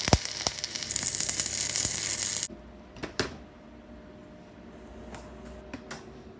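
Welding arc hissing and crackling as a pinhole is welded shut on a leaking inlet manifold. The arc cuts off suddenly about two and a half seconds in, followed by a couple of sharp clicks.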